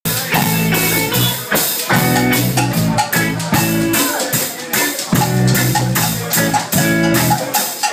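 Live band playing: a drum kit keeping a steady beat under electric guitar and a repeating low bass line.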